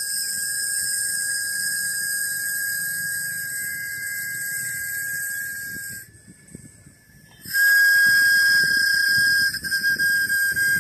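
Small handheld whistles blown in one steady, high held tone, which stops about six seconds in and comes back louder a second and a half later; near the end the tone starts to pulse in quick short blasts.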